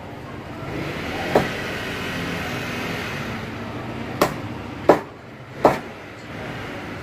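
Cleaver chopping through raw chicken onto a cutting board: four sharp knocks, one about a second in and three close together in the second half, over a steady background noise that swells during the first few seconds.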